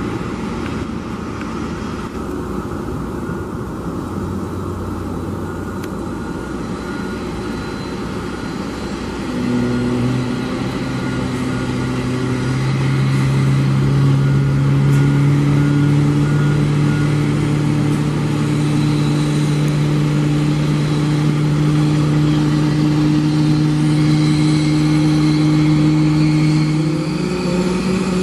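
Engine noise from an Airbus A321neo and the tug at its nose: a steady hum that grows louder about ten seconds in, with low steady tones that step up in pitch near the end and a faint high whine above.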